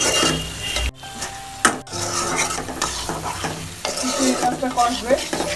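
A metal spoon stirring and scraping prawns through spice paste in a metal pot while they sizzle in oil, with a brief dip in the sound about a second in. The prawns are being sautéed in the masala.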